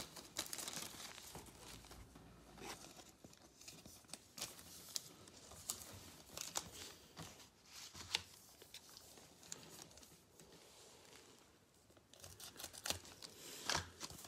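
Soft crinkling and tearing rustles of a foil-wrapped Elite trading card pack and cards being handled, with scattered small clicks.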